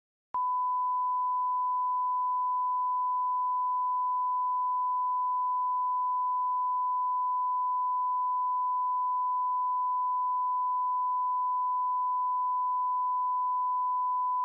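A single steady electronic alert tone, one unwavering pitch with nothing else, beginning about half a second in and held without a break: the attention tone of a mock Emergency Alert System broadcast.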